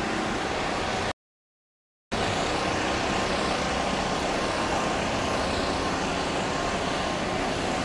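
Steady outdoor background noise with no single clear source, cut by about a second of total silence a second in: a dropout in the recording.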